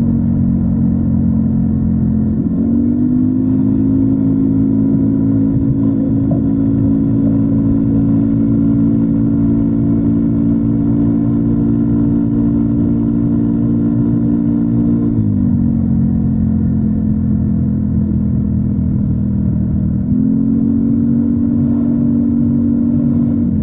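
Yamaha NMAX 155 scooter's single-cylinder engine running through a DS4 Daeng Sai4 ST1 aftermarket muffler while riding. Its steady note rises about two seconds in, holds level for a long stretch, drops around fifteen seconds in, and climbs again near twenty seconds.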